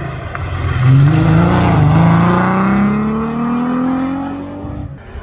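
Historic rally car's engine accelerating hard at full throttle, its pitch rising steadily through a long pull after a quick gear change about a second and a half in. The sound cuts off suddenly near the end.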